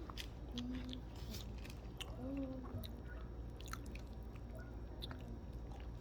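A man chewing a mouthful of chicken roti, with scattered wet mouth clicks and a few brief low hums of the voice.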